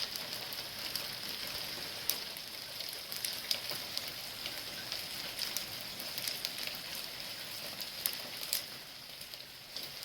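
Small hail or icy pellets falling steadily: a constant hiss of precipitation, with frequent sharp ticks from pellets striking hard surfaces.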